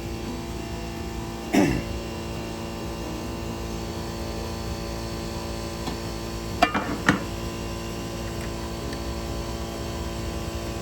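Steady hum with a single knock about a second and a half in and a quick cluster of sharp metallic clicks around seven seconds, typical of hand tools handled against a vehicle's metal while ground connections are checked.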